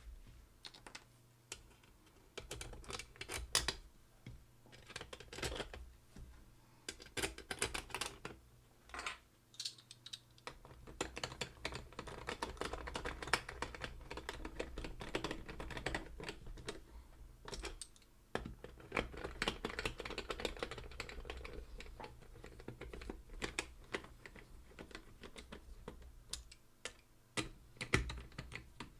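Irregular runs of light clicks and taps, busiest in the middle.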